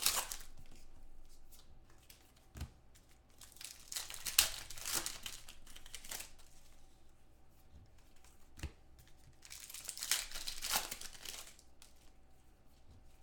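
Football trading-card pack wrappers being torn open and crinkled, in several separate bursts of rustling.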